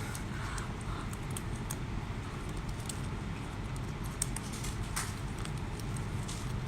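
Spiny mantis shrimp shell being pried open by hand: scattered small clicks and cracks of shell over a low steady hum.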